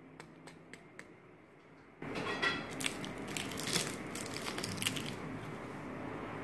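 Knife cutting through the crisp, deep-fried pastry crust of a vegetable samosa: a few faint clicks, then from about two seconds in a loud, crackling crunch with many sharp snaps as the blade breaks through the crust.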